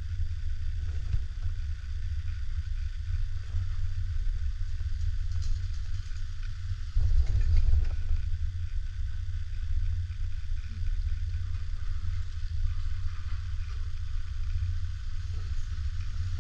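Steady low wind rumble on the camera microphone while riding a chairlift, with a faint hiss above it. It grows louder for about a second around seven seconds in.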